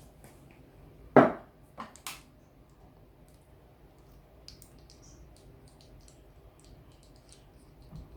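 A power knob for a fishing reel being worked open with a cloth-wrapped butter knife: a sharp clack about a second in, two lighter clicks just after, then faint small ticks of parts being handled.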